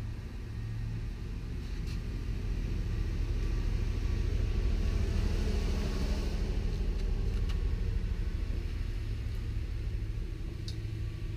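A steady low mechanical rumble with an even hum, swelling somewhat in the middle, with a few faint clicks.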